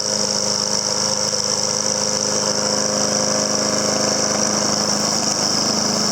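Honda HRM215 walk-behind lawn mower's GCV140 single-cylinder engine running steadily with the blade engaged and the self-propelled drive in gear. A steady high whine sits over the engine note.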